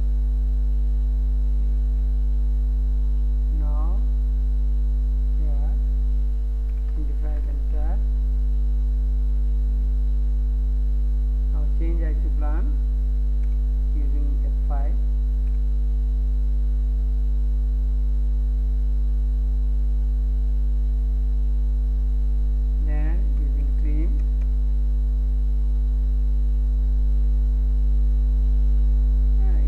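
Steady electrical mains hum in the recording, a low buzz with a ladder of even overtones above it that never changes. A few faint short sounds that bend in pitch come and go in the background.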